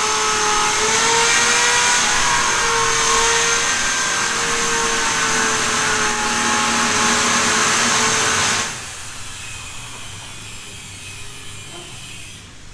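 A motor running steadily, giving a whine over dense noise, that cuts off suddenly about eight and a half seconds in, leaving a quieter hiss.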